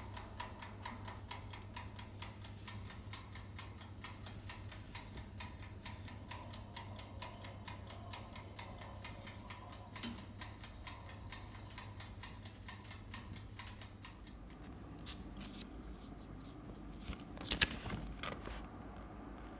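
The mechanical timer of a Pensonic AE-19N electric oven ticking rapidly and evenly while the oven heats, over a low steady hum. The ticking and hum fade out about two-thirds through, and a few handling knocks and paper rustles follow near the end.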